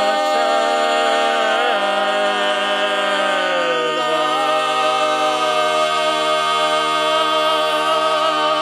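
Barbershop quartet of four men's voices singing a cappella, holding a long final chord on one sustained vowel. About three and a half seconds in, the bass slides down to a lower note, and the ringing chord is then held steady.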